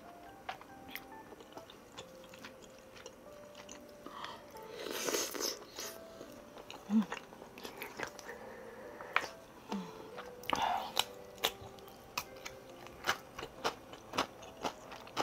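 Close-miked eating of spicy tteokbokki: chewing and biting with many short clicks and crunches, and a louder noisy burst about five seconds in. Soft background music plays underneath.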